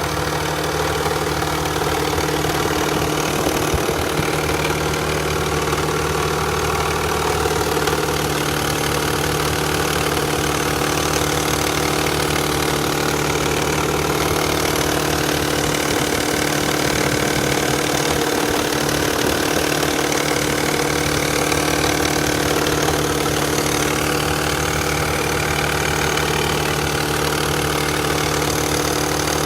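Nissan Fairlady Z Z32's twin-turbo VG30DETT V6 idling steadily just after a cold start, with a loud clattering rattle from the hydraulic lash adjusters (valve lifters) that are not yet pumped up with oil.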